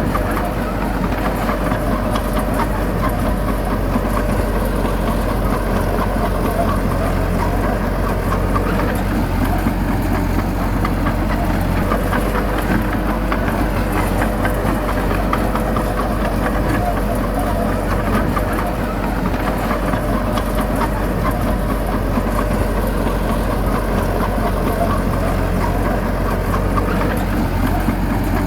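Bulldozer's diesel engine running steadily at a constant pitch, with a dense clatter of small ticks over a low hum.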